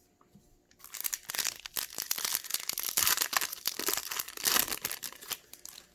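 Foil wrapper of a Topps baseball card pack being torn open and crinkled by hand: a dense crackling run of tearing and crumpling that starts about a second in and lasts about five seconds.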